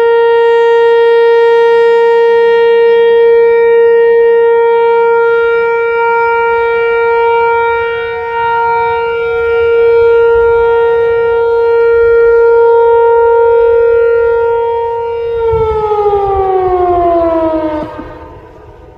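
Whelen Vortex tornado siren sounding a steady tone for its test, rising and dipping a little in loudness. About three-quarters of the way through it winds down: the pitch falls and the sound fades out.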